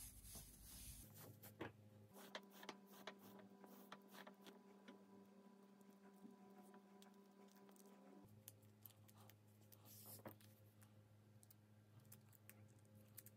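Near silence with faint, scattered small clicks and rustles of braided cord being handled and pulled through a metal carabiner.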